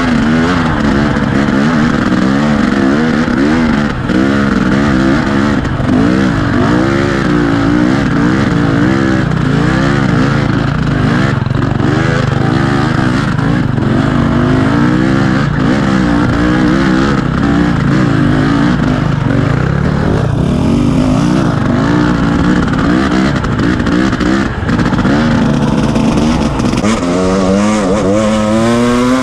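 KTM 250 EXC two-stroke dirt bike engine, heard close up from the bike, revving up and down on the throttle as it climbs a steep rocky trail. Its pitch rises and falls constantly, with a longer climbing rev near the end.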